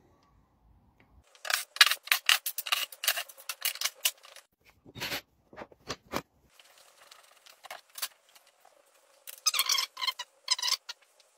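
Hand tools and metal parts clicking and scraping as a planer thicknesser's motor is taken apart. A quick run of sharp clicks lasts a few seconds, scattered clicks follow, and a second short run comes near the end.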